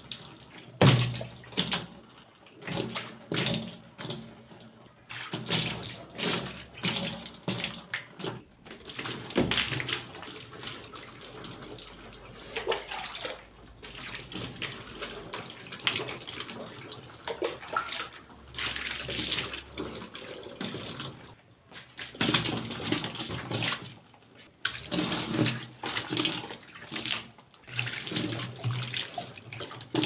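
Water scooped up with a plastic jug and poured over the lid and into the tub of a twin-tub washing machine, splashing in repeated, irregular pours.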